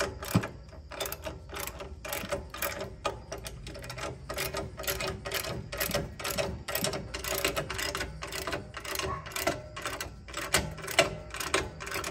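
Craftsman socket ratchet clicking quickly and steadily as the bolts are tightened down.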